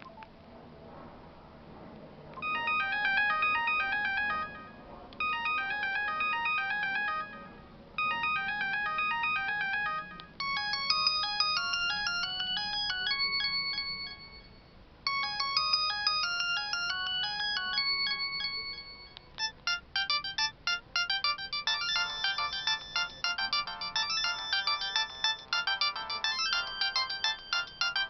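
Electronic ringtone melodies from an LG A180 mobile phone. After a couple of seconds of faint background, a short melody plays in repeated phrases with brief gaps between them. About two-thirds of the way through it gives way to a faster, busier tune.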